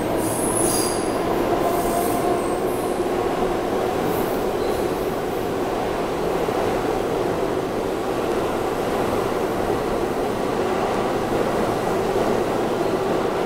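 R68 subway train of the D line rolling out of the station along the platform, a loud steady rumble of wheels and motors. A thin high wheel squeal comes in the first couple of seconds.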